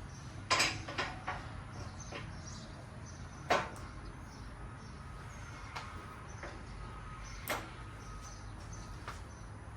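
Scattered knocks and clanks of metal parts being handled while a strut is set up in a spring compressor. The two sharpest clanks come about three and a half and seven and a half seconds in, over a steady low hum.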